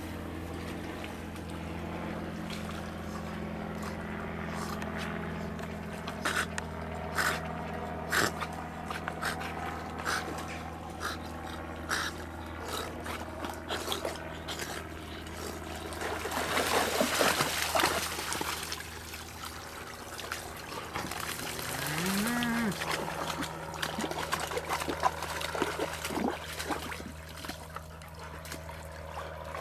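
Dogs swimming in a river: water sloshing and dribbling with scattered small splashes as they paddle, then a louder spell of splashing a little past halfway as they reach the shallows. A steady low hum runs underneath.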